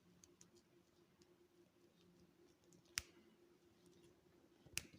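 Near silence with a faint steady hum; two sharp clicks, about three seconds in and just before the end, and a few lighter ticks, from the plastic parts of a new vacuum cleaner being handled.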